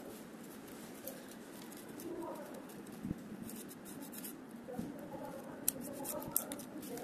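Wooden craft sticks being handled on a hard table: light scraping, then a few sharp clicks, the loudest near the end.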